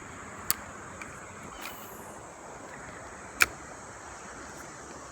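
Steady rush of flowing river water, with two sharp clicks: a small one about half a second in and a louder one about three and a half seconds in.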